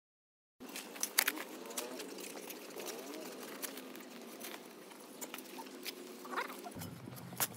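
Steel spade digging into turf and soil: scraping and crunching of the blade in the ground, with several sharp knocks about a second in.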